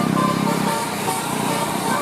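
Bus telolet horn, a set of multi-tone air horns playing a musical chord, which stops under a second in, leaving steady vehicle engine and road noise.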